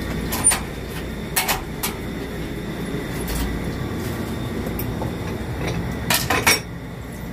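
A steady low hum with a few short, sharp clicks and knocks: a couple about a second and a half in and a quick cluster of them near the end.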